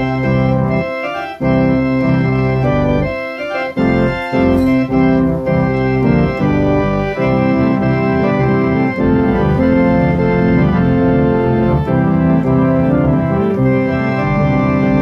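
Two-manual organ played on both keyboards and the pedalboard: held chords over a pedal bass line, changing chord by chord, with a few short breaks between phrases in the first four seconds.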